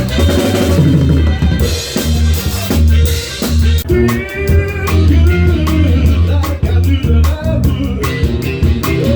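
Live soul band playing, recorded close to the drum kit: kick drum and snare with rimshots drive a steady beat over a bass line. Pitched melodic lines join in from about halfway through.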